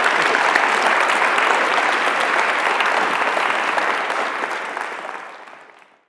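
Audience applauding steadily, fading away over the last couple of seconds.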